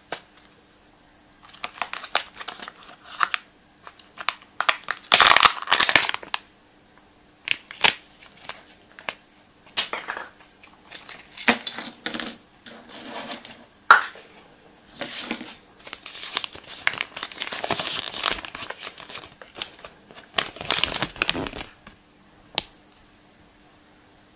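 Wrapper of a chocolate surprise egg crinkling as it is unwrapped by hand, in irregular bursts with sharp clicks in between, the loudest about five seconds in.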